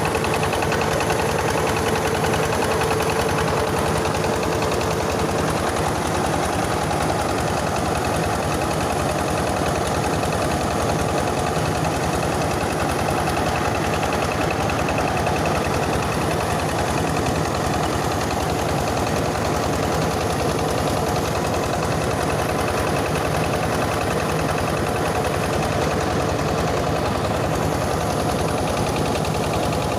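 Rice-hulling mill powered by a Yanmar 20 diesel engine, running steadily with an even engine hum and the mill's machinery noise.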